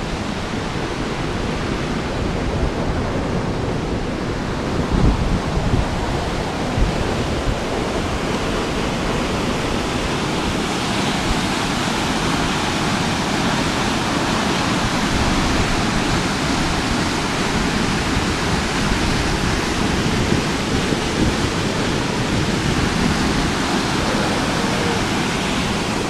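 Waterfall in full flow, a steady loud rush of white water, its hiss growing brighter about ten seconds in. A few low thumps sound on the microphone about five to seven seconds in.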